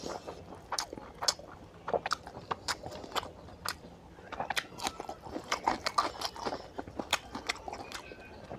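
A person chewing mouthfuls of oily mutton fat curry eaten by hand, with irregular wet smacking and sharp mouth clicks, a few every second.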